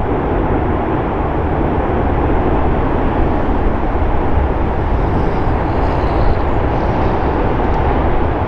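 Strong wind from a nearby tornado: a loud, steady rushing noise with a heavy low rumble and no break.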